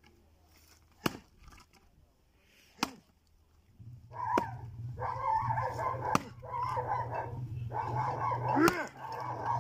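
Sharp blows of an adze chopping into a block of wood on bare ground, the first two about two seconds apart. From about four seconds in, a steady low hum and a continuous wavering, pitched sound take over and are louder than the blows.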